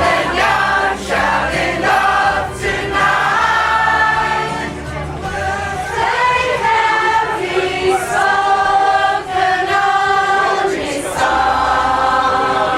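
A pop choir singing a song in harmony with musical accompaniment, with sustained held notes.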